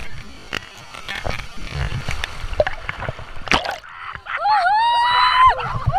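Water splashing and sloshing, then, about four seconds in, a high-pitched voice shrieks in long calls that glide up and down.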